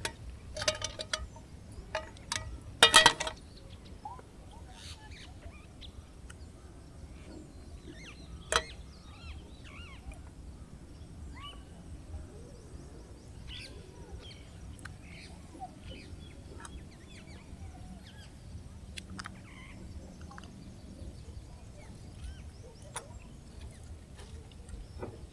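Birds chirping faintly over a steady low outdoor rumble, with a few loud knocks and rattles of handled camp gear in the first three seconds and one sharp click about eight seconds in.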